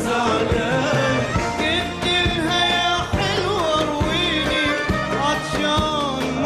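Male voice singing an Arabic song with a wavering, ornamented melody over instrumental accompaniment and a steady drum beat.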